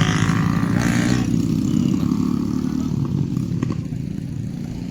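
A motor vehicle's engine running with a low rumble, growing quieter from about two seconds in.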